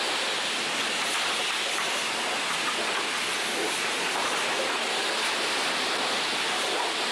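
Steady hiss of a self-serve car-wash high-pressure spray wand blasting water at a vehicle's wheel and the wet concrete floor.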